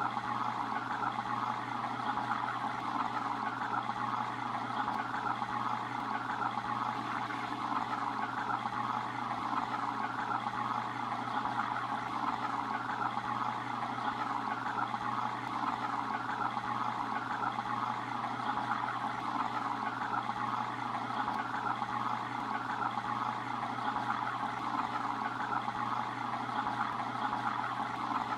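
Steady rush of moving water in a fish tank, with a low steady hum beneath it.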